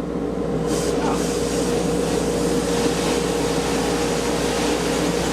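Sandblasting equipment running at low pressure (about 45 PSI): a steady hiss of air and abrasive over a steady machine hum.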